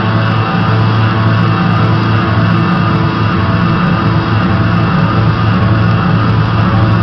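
Loud, dense music playing without a break, with steady sustained tones and a strong low end.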